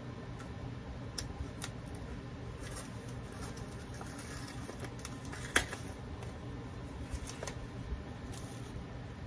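Small plastic packaging and an earring card being handled: light scattered clicks and crinkling, with one sharper click about halfway through, over a steady low hum.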